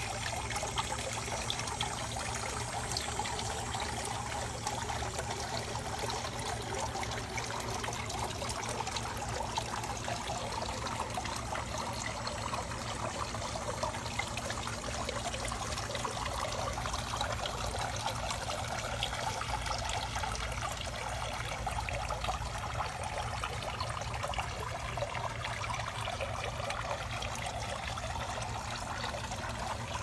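Steady trickle of water from a garden water fountain.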